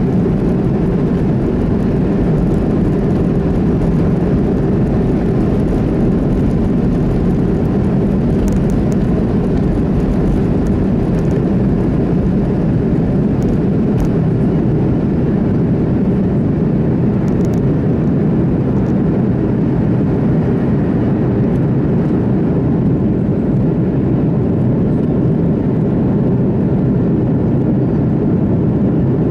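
Cabin noise of a Boeing 737-200 during its takeoff run and climb-out: the Pratt & Whitney JT8D turbofans running at takeoff thrust, a steady, dense, low-pitched din heard through the fuselage over the wing, mixed with runway rumble. The deepest rumble thins in the later seconds as the wheels leave the ground.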